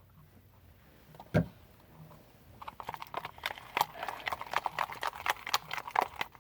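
Slime being stirred in a bowl, the stirring utensil clicking rapidly against the bowl several times a second for the last few seconds. A single thump comes a little over a second in.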